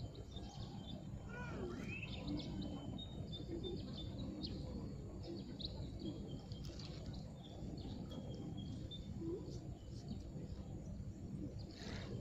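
Small birds chirping now and then over a steady low background rumble.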